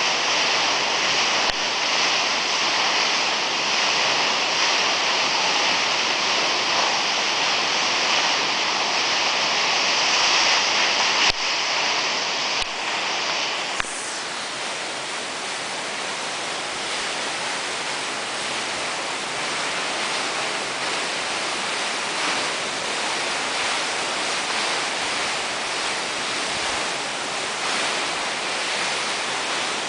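Steady outdoor rushing noise, like falling water or wind, with no distinct events. There are a couple of faint clicks around eleven and fourteen seconds in, after which the rushing turns flatter and slightly quieter.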